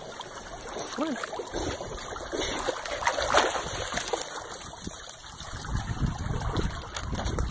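A corgi swimming through lake water and scrambling out onto a wooden dock: water splashing and dripping off its coat. A low wind rumble on the microphone comes in for the last couple of seconds.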